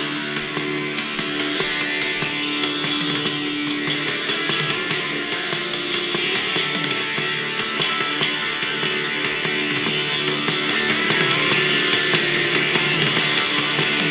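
Guitar-driven rock music with a steady beat, played back from a microSD card through the Tiemahun FS-089 radio's built-in speaker.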